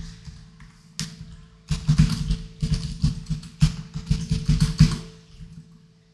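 Computer keyboard typing: a single keystroke about a second in, then a quick run of keystrokes for about three seconds that stops about five seconds in.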